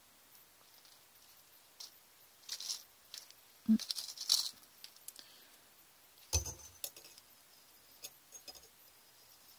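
Fine jewellery wire being pulled and coiled by hand: scattered light scratches and small metallic clinks, with a couple of soft knocks against the work surface.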